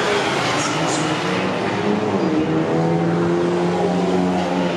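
Several race car engines running past through a corner. Their notes drop about two seconds in, then hold steady under power.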